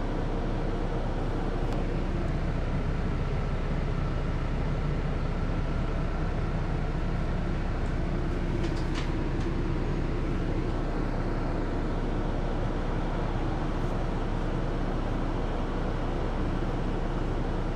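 City bus engine running at standstill, heard from inside the passenger cabin: a steady low hum and rumble.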